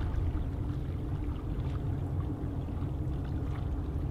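Water lapping and splashing against the shore over a steady low rumble.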